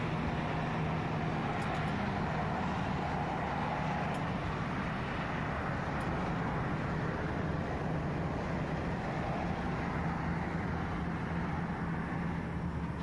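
A steady low mechanical hum under an even rushing noise, holding at one level throughout.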